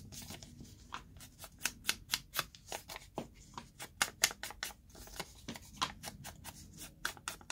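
Foam ink dauber dabbed and rubbed along the edges of a piece of coffee-dyed paper to stain it: a quick, irregular run of soft scuffs, a few each second.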